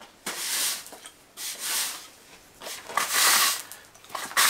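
Push broom sweeping grass cuttings across stone flagstones: four scraping strokes, a little over a second apart.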